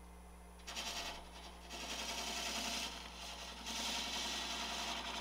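Turning tool cutting the spinning wood at the neck of a lathe-turned bottle: a scraping hiss that starts about a second in and comes in several passes with short breaks, over the steady hum of the wood lathe's motor.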